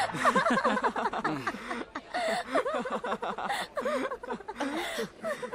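Cartoon soundtrack of several voices chattering and chuckling over one another. A music cue fades out in the first second and a half.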